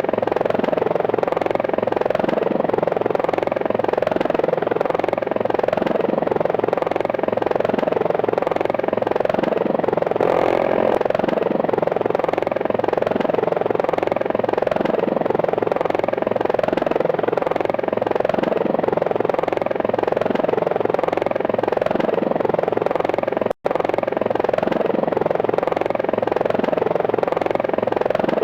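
Helicopter flying sound effect: steady, continuous rotor and engine noise with an even beat, cut by a split-second gap of silence about 23 seconds in.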